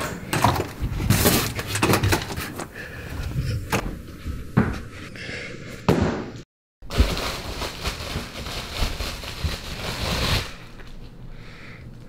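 Interior door knob turning and the door opening, with clicks and knocks of handling. After a short break comes a stretch of dense rustling as a cardboard parcel and its plastic wrapping are opened, which stops near the end.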